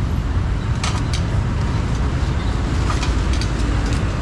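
Street market ambience: a steady low rumble of motor traffic, with a few sharp clicks and knocks.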